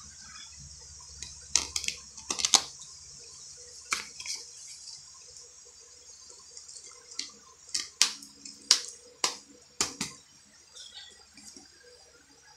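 Plastic Blu-ray cases being handled: sharp plastic clicks and clacks as a case is snapped shut and cases are picked up and set down. They come in a cluster about two seconds in and another about eight to ten seconds in, over a steady high hiss.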